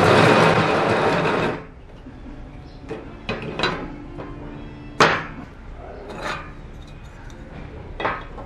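Workshop tool and wood handling: a loud noisy burst lasting about a second and a half, then scattered knocks and clicks, the sharpest about five seconds in.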